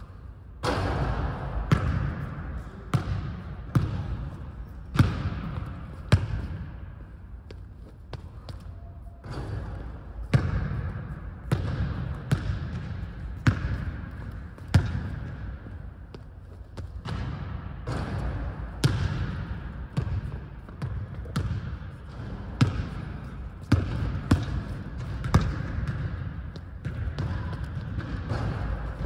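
A basketball bouncing on a hardwood gym floor: sharp hits roughly once a second, in runs broken by short pauses, each echoing in the large hall.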